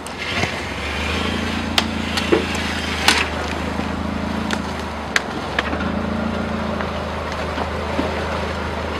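Subaru Forester's flat-four engine pulling steadily at low speed as the car crawls up a rocky trail, easing off briefly about five seconds in. A few sharp knocks sound over it as rocks crunch under the tyres.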